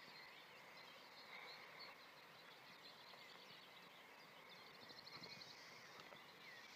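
Near silence: faint outdoor ambience with scattered faint high chirps and, about five seconds in, a short rapid high trill.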